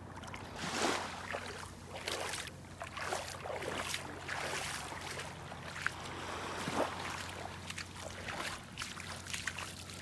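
Shallow water sloshing and lapping over shell-strewn sand at the water's edge, in irregular splashy washes about once a second.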